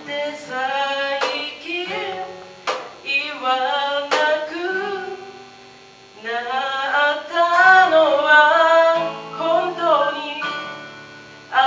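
Live acoustic band music: a lead vocal sung over strummed acoustic guitar, with cajon strokes. The music thins out about five seconds in, then comes back louder.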